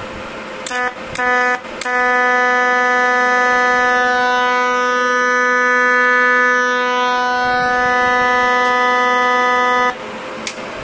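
TIG welding arc from a Weiro SuperTIG 315EX inverter welder, pulsed at a high pulse frequency, giving a loud steady buzzing tone. It catches in two short tries about a second in, then holds for about eight seconds before cutting off. The welder is working again after repair of its blown MOSFETs and dead HF start.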